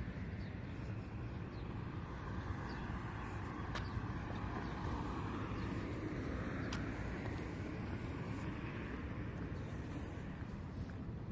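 Road traffic: a car passes, its sound swelling about halfway through and fading again, over a steady low rumble.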